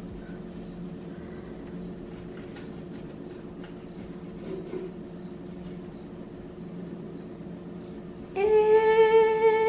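Faint sawing of a serrated knife through baked puff pastry over a low steady hum. About eight seconds in, a woman's voice holds one long, steady note for about a second and a half.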